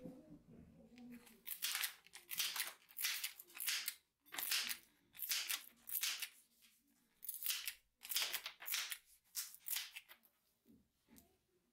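Pruning shears snipping through a dry twig again and again, each cut a short crunchy snap, about one every half second to a second.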